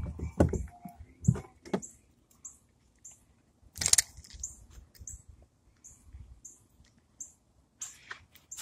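Handling noise from the fishing rod and phone: a few dull thumps, then a brief scrape or rustle about four seconds in. Faint, high, short chirps repeat about twice a second throughout.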